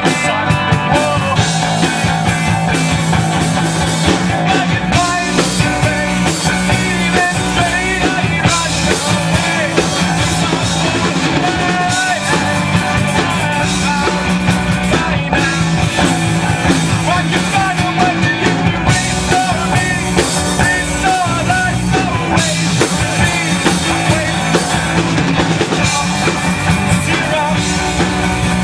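Live rock band playing a song with drum kit, bass and melodic lines, loud and continuous.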